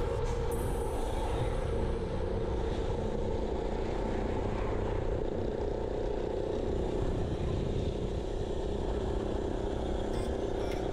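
Wind and road noise of a ride on the move: a steady, heavy rumble with a hum that drifts slowly lower in pitch. A few sharp clicks come near the end.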